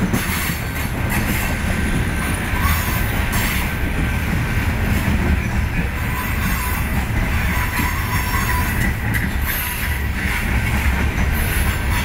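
Loaded coal hopper cars rolling slowly past: a steady rumble of steel wheels on the rails, with a thin wheel-flange squeal on the curve that comes and goes.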